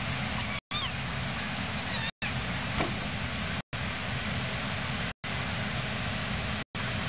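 A few short, high kitten mews over a steady hiss. The sound cuts out briefly about every second and a half.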